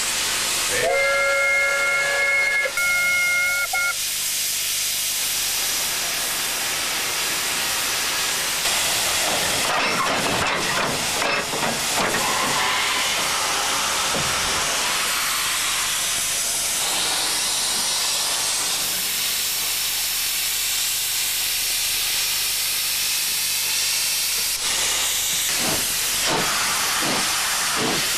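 Steam locomotive's whistle sounding a chord of several steady tones for about three seconds near the start. Then a loud, steady hiss of escaping steam, with a run of rhythmic puffs about twice a second near the end.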